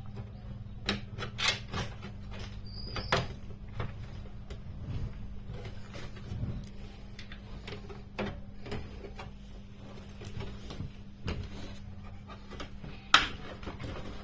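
Scattered clicks and light knocks from hands handling PC parts during assembly, over a steady low hum. One sharp click near the end is the loudest.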